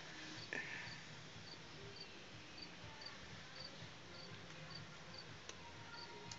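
Faint, evenly spaced high chirps about twice a second, typical of a cricket, over a low background hum, with a brief click about half a second in.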